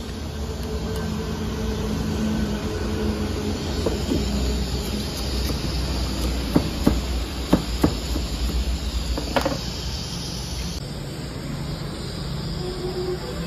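Steady low rumbling hiss of a gas burner flame on a small LPG cylinder, with five sharp clinks of a knife against aluminium baking pots around the middle.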